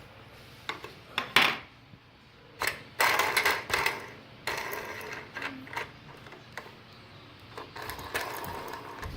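Plastic toy car-kit parts and a toy screwdriver handled during assembly: irregular clicks and rattles, with the busiest stretch of rattling about three seconds in.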